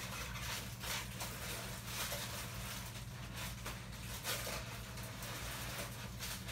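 Handling noise from the statue parts and their wrapping: uneven rustling with light scrapes and taps, over a steady low hum.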